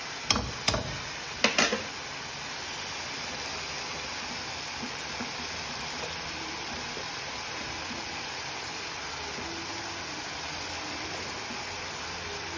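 Cluster beans, onion and tomato sizzling steadily in a metal kadai. A metal ladle knocks against the pan four times in the first two seconds as the vegetables are stirred.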